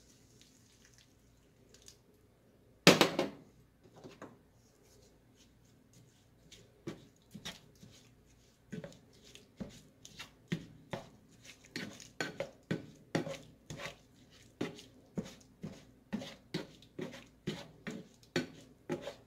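A spatula stirring wet ground beef in a stainless steel skillet, in short scraping, tapping strokes at about two a second from about seven seconds in. A single sharp knock about three seconds in is the loudest sound.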